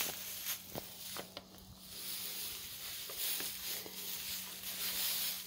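Soft rustling hiss with a few scattered light clicks and knocks, over a faint steady low hum.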